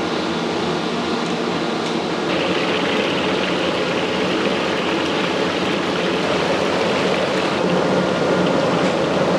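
Whole fish deep-frying in a wok of hot oil, a steady sizzle of bubbling oil that gets louder and brighter about two seconds in.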